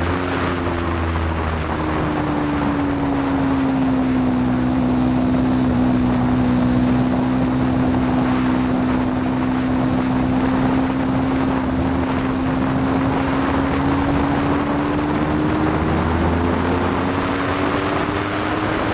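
Aprilia Tuono V4 motorcycle's V4 engine running hard under way, its note dipping and recovering at the start, easing slightly lower, holding steady for a long stretch, then climbing again near the end. Wind rushes over the microphone throughout.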